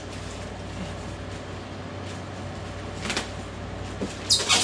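Plastic bags rustling as frozen food packs are handled in a styrofoam cooler, with a faint rustle about three seconds in and a louder, sharper one near the end, over a steady low hum.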